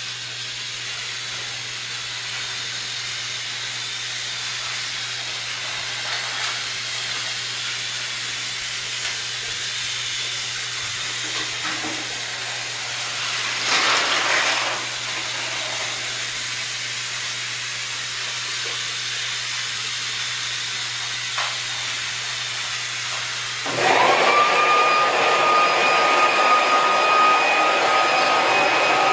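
A steady hiss with a low hum, then about 24 s in an electric blower motor switches on. It spins up with a rising whine and runs loud and steady with a high whine.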